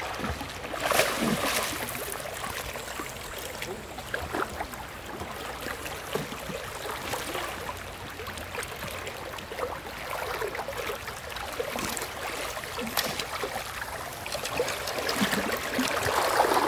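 Flowing river water rippling and gurgling around wading legs, with louder bursts of water noise about a second in and near the end.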